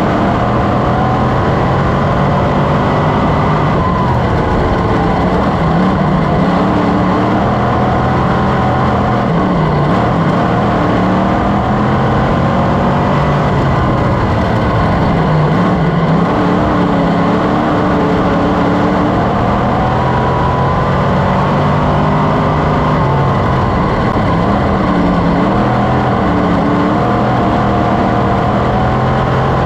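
Sportsman race car's V8 engine heard from inside the cockpit under racing, revs dipping and climbing again and again over a constant rush of wind and track noise.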